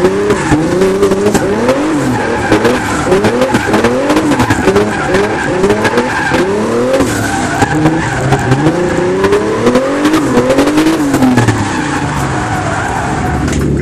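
640-horsepower drift car's engine revving up and dropping back over and over, about every second, with tyres squealing through a drift, heard from inside the cabin. Near the end the revs ease off.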